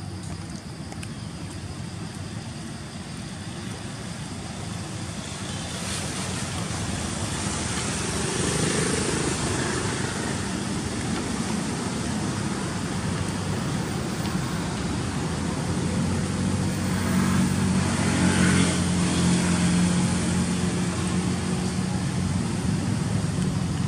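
Road traffic passing: vehicles go by in two swells, one about a third of the way through and a louder one with a low engine hum about three quarters through.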